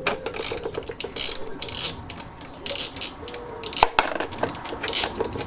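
A ratchet wrench clicking in quick runs as nuts are undone on a Fiat 500 499cc engine's cylinder head. A sharp metallic clink comes a little before four seconds in, as a loosened nut goes into the parts tray.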